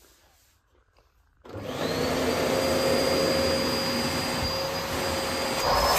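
Quiet for about a second and a half, then a bagless vacuum cleaner switches on and runs steadily with a high whine. There is a brief knock near the end.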